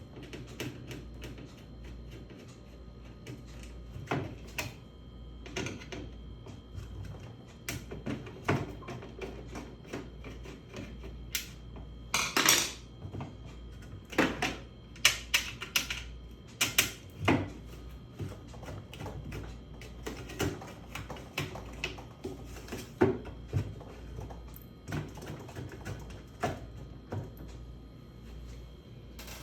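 Irregular clicks, knocks and clatters of tools and parts being handled during washing machine repair work, a few louder clatters near the middle, over a steady low hum.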